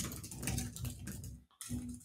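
Typing on a computer keyboard: a short run of soft keystrokes.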